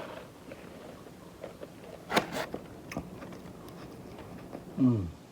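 Close-up chewing and crunching of a crispy chicken salad, with a couple of sharp crunches about two seconds in. Near the end comes a short hum from the eater's voice, falling in pitch, the loudest sound here.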